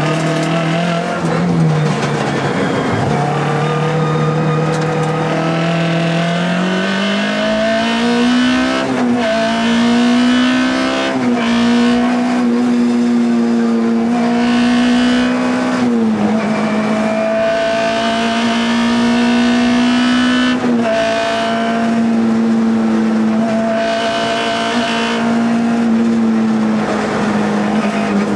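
Škoda Felicia Kit Car rally engine at full stage pace, heard from inside the cabin. The revs climb steadily over the first several seconds, then stay high, with short dips at a handful of quick gear changes.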